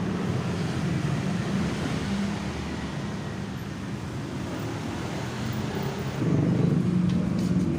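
Steady vehicle engine and road noise with wind on the microphone, growing louder about six seconds in.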